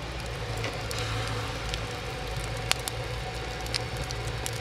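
Wood fire burning in a steam launch's boiler firebox: a steady low rushing draught with scattered crackles and pops.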